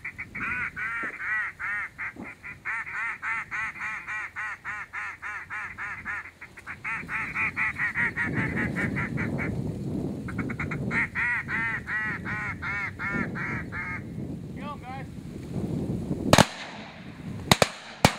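Duck call blown in fast runs of quacks, about five a second with short breaks, working a flock of ducks. About two seconds after the calling stops come three shotgun shots, the loudest sounds here.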